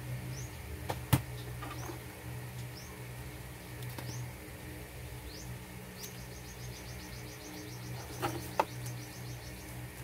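Paper and plastic packaging handled by hand, with a sharp click about a second in and two more just past eight seconds. Behind it a bird calls: short rising chirps about once a second, then a rapid trill of repeated notes lasting about two seconds. A steady low hum sits underneath.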